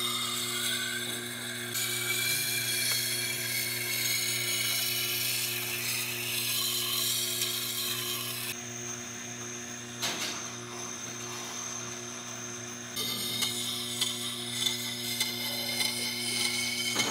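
Tormek T8 wet grinding stone turning with a steady motor hum while a steel kitchen cleaver, held in a jig, scrapes across the wet stone. There is a single knock about ten seconds in.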